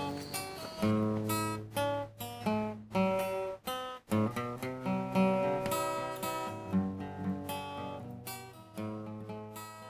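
Outro music: acoustic guitar strumming and picking chords, fading out near the end.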